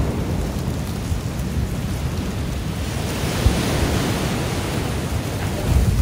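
Ocean waves washing against the shore, with wind buffeting the phone's microphone as a low rumble; the hiss of a wave's wash swells about halfway through.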